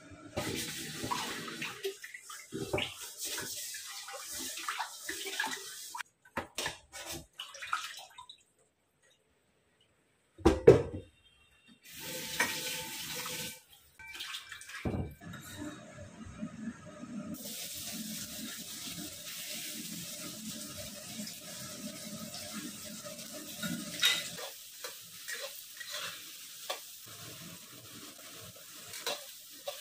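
Tap water running into a stainless-steel kitchen sink during washing up, with dishes and pots clattering. About a third of the way in comes a brief silent gap and then one loud knock. Near the end, a spatula stirs and scrapes sliced luffa in a wok.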